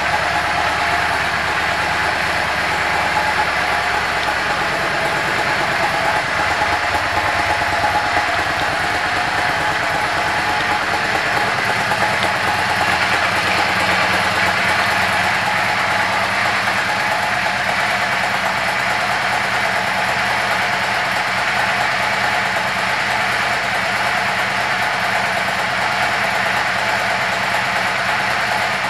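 Yamaha V Star 650 Custom's air-cooled V-twin engine idling steadily.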